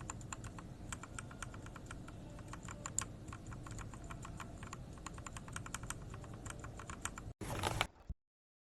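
Mechanical keyboard fitted with Gateron Ink Black v2 linear switches being typed on, a fast, uneven stream of keystroke clacks. Near the end the typing stops and a brief, louder burst of noise follows before the sound cuts off suddenly.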